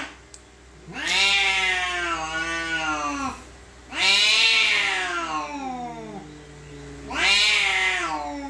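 Tabby domestic cat yowling angrily at another cat: three long, drawn-out yowls with short pauses between, each rising and then wavering down in pitch.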